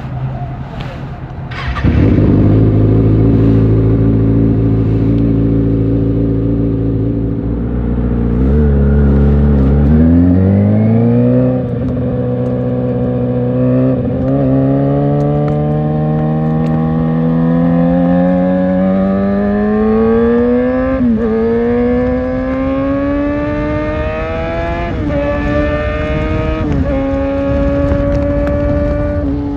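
Kawasaki Ninja ZX6R's inline-four engine running steadily, then pulling away from about nine seconds in, its pitch climbing in each gear and dropping briefly at several upshifts.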